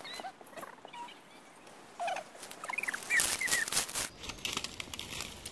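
Dry sticks and leaf litter crackling underfoot, with a loud burst of cracking about three seconds in. Short chirping bird calls sound now and then behind it.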